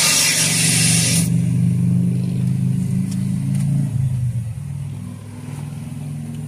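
Car engine running in a car wash, under a loud hiss from the wash equipment that cuts off suddenly about a second in. The engine hum carries on and eases off after about four seconds.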